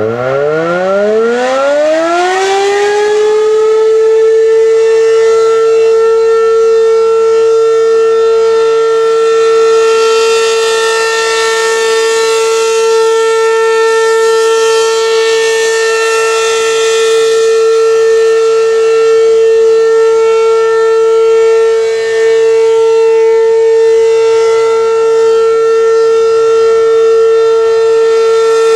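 American Signal RM-127 outdoor warning siren winding up from a low pitch to a high tone over the first two to three seconds, then holding one steady wail, loud, with its level swelling and easing slightly. This is the siren's monthly test.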